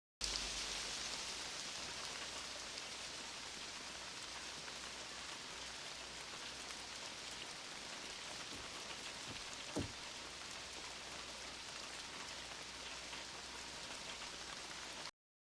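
Steady rain, a dense even hiss of falling drops, starting and cutting off abruptly, with a single brief low thump about ten seconds in.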